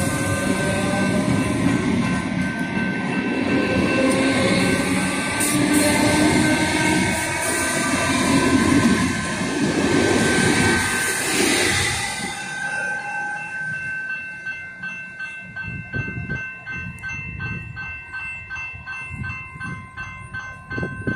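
Comeng electric suburban train accelerating away past the camera: traction motors whining and rising in pitch over the rumble of wheels on rail, loudest around ten seconds in and fading after about twelve seconds. Level-crossing bells ring steadily throughout and stand out clearly once the train has gone.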